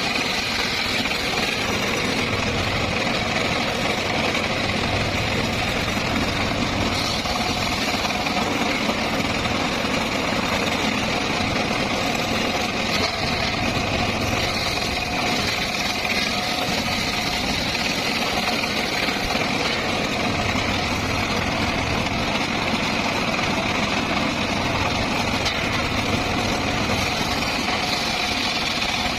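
Circular saw rig running steadily, its motor and spinning blade making an even mechanical drone with a few steady tones and no let-up.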